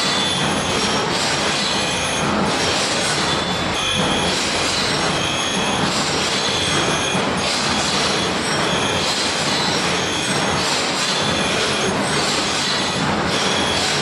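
Surface grinder's abrasive wheel grinding a steel cutter plate from a header machine: a steady, loud hissing grind. The high hiss swells and fades about every two seconds as the reciprocating table carries the plate back and forth under the wheel.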